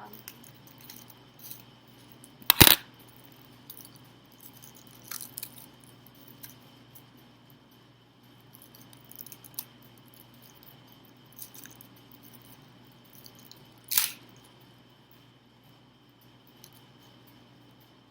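Decorated light switch plate covers being handled: scattered light clicks and taps, with two sharp, louder knocks, about two and a half seconds in and near fourteen seconds in.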